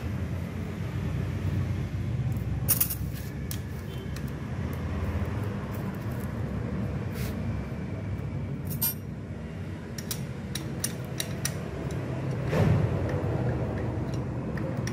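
Light metallic clicks and taps from a hex key, screws and a servo motor being fitted against an aluminium CNC frame, with a louder knock near the end, over a steady low background rumble.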